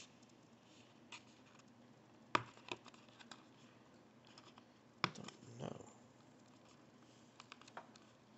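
Fingers handling and picking at a small cardboard box, giving a scattering of short clicks and taps with quiet handling noise between. The two loudest taps come about two and a half and five seconds in.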